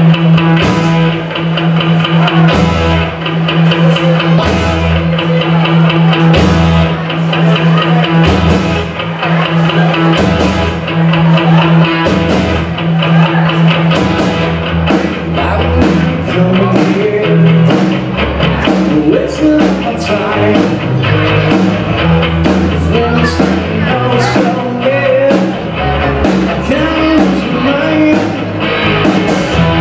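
Live 1980s rock cover band playing: electric guitars, bass, keyboard and drum kit on a steady beat, with a lead singer's vocal.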